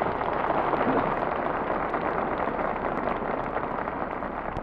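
An audience applauding in a theater, on an old radio transcription recording. It starts suddenly and dies away near the end.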